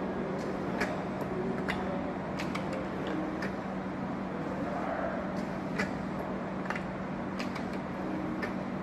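Semi-automatic labeling machine for round bottles running with a steady motor hum. Irregular sharp clicks and clacks come from the mechanism and the plastic bottles being set in and pressed under the roller.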